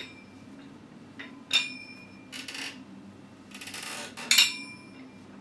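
Iron plates on a pair of plate-loaded dumbbells clanking as they are lifted and handled: three sharp metallic clanks with a short ring, one at the start, one about a second and a half in, and the loudest near the end.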